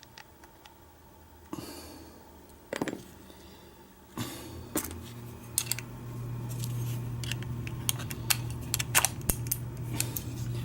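Sharp metallic clicks and light rattles from an old Kwikset door knob being worked apart by hand as its cylinder is turned and freed. The clicks come thicker in the second half, over a low steady hum that starts about four seconds in.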